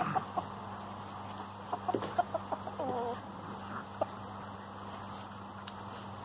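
A few short animal calls: a couple right at the start, then a quick cluster of short pitched calls about two to three seconds in, over a steady low background hum.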